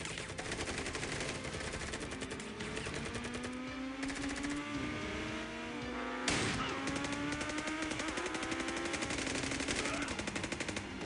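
Sustained automatic gunfire, many shots a second in long overlapping bursts, over slowly rising pitched tones. A louder bang stands out about six seconds in.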